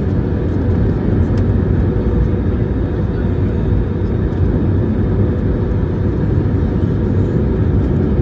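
Steady cabin noise of a jet airliner in flight on descent: engine and airflow noise heard from a window seat, deep and even, with a faint steady hum.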